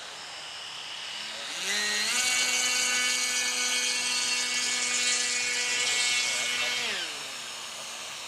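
Electric motor and propeller of an E-flite Cub RC model plane, a whine that rises about a second and a half in and holds steady for some five seconds. It then falls away as the throttle is cut for touchdown on the grass.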